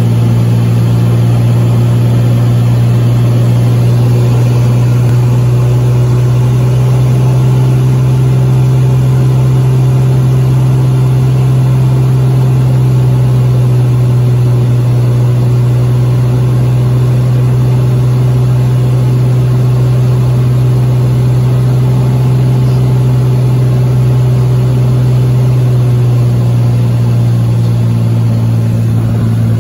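Cessna light aircraft's engine and propeller droning steadily, heard from inside the cabin on approach to landing; the pitch of the drone shifts slightly near the end.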